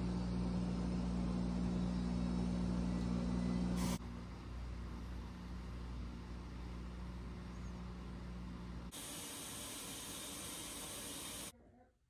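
A steady machine hum with hiss. It changes suddenly about four seconds in, and about nine seconds in the hum drops out, leaving a brighter hiss that stops abruptly near the end.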